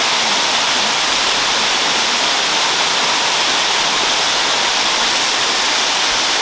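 Third Vault Falls, a high waterfall, with water pouring down in a steady, loud rush that does not change.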